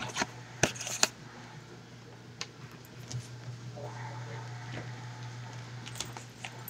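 A puppy playing with a ball on a hard floor: scattered sharp knocks and clicks, the loudest two within the first second or so, over a steady low hum.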